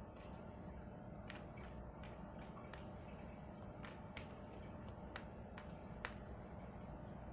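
Tarot cards shuffled hand to hand: irregular sharp clicks and taps as packets of cards drop onto the deck, about ten of them, over a faint steady hum.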